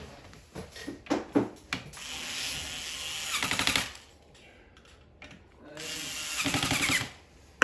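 Power screwdriver running in two bursts of about two seconds each, each getting louder toward its end, with a few clicks and knocks from handling before the first burst.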